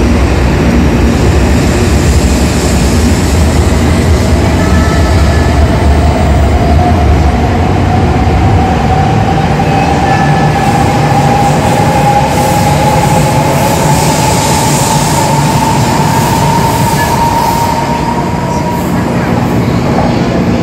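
Coupled E5- and E6-series Shinkansen pulling out along the platform. There is a loud, steady rumble of wheels and rushing air, and the traction motors' whine climbs slowly in pitch as the train gathers speed.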